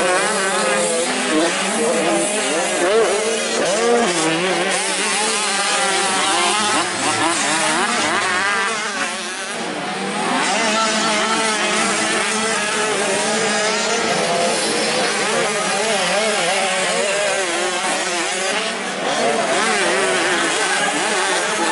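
Motocross dirt bike engines revving up and down as the riders race over the track, more than one bike at once, the pitch rising and falling again and again. The sound drops off briefly about nine seconds in, then picks up again.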